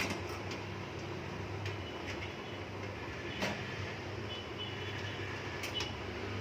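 A few sharp clicks and knocks as a motherboard is handled and set into a metal PC case, the strongest about halfway through, over a steady background hum.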